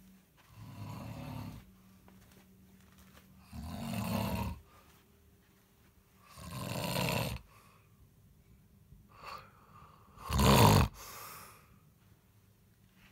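A man snoring loudly in his sleep: four heavy snores about three seconds apart, one on each breath, the last the loudest.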